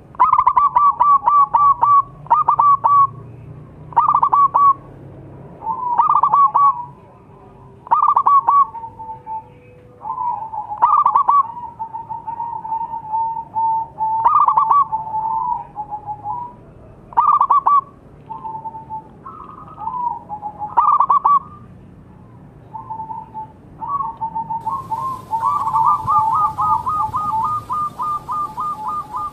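Zebra dove (perkutut) cooing: short staccato phrases repeated every second or two, turning into a faster, longer string of notes near the end.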